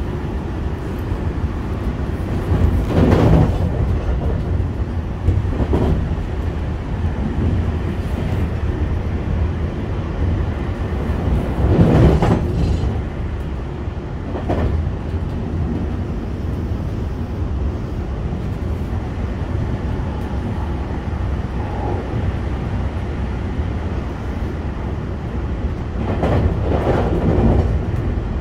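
JR West 225-series electric train running at speed, heard from inside its motor car: a steady rumble of wheels on rail. Several louder clattering strokes from the track come through now and then.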